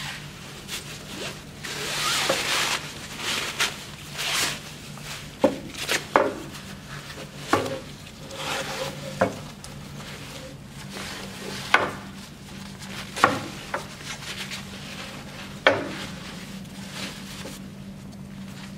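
Metal tube being pushed through a fabric sleeve: rustling and scraping of the fabric over the tube, broken by several sharp knocks and clacks as the tube and its plastic fittings bump the table. A steady low hum runs underneath.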